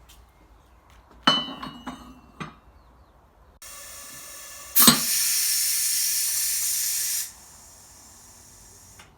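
A few clattering knocks, then a steady hiss from about three and a half seconds in. It jumps much louder with a sharp click near the middle, drops back to a faint hiss about two and a half seconds later, and stops near the end.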